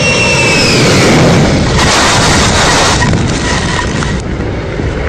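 Beriev Be-200's twin turbofan jet engines passing: a high whine falls in pitch during the first second, then gives way to a loud, rushing jet engine noise that eases slightly after about three seconds.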